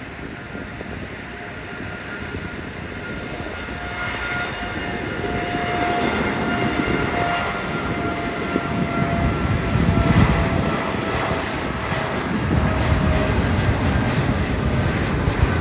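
Boeing 787-9's twin turbofan engines at takeoff thrust on the takeoff roll, growing steadily louder as the airliner speeds toward and past. A steady whine drops slightly in pitch, and a deep rumble builds from about halfway through.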